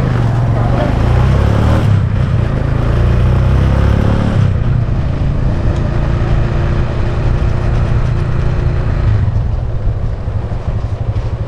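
Motorcycle engine running with a steady low rumble, a hissy noise over it dropping away about four and a half seconds in.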